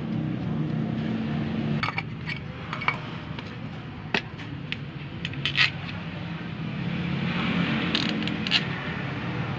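Sharp metal clinks and light scrapes as a starter motor is reassembled, its end cover fitted onto the housing and its long bolts set in. The clinks come singly and in pairs from about two seconds in, over a steady low engine-like hum.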